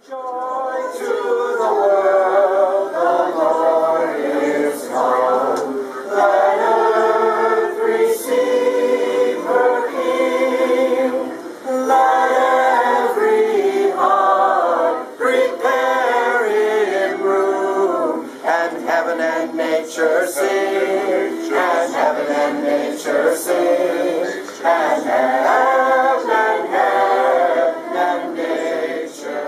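A choir singing a cappella, several voices in harmony holding and moving between sustained notes.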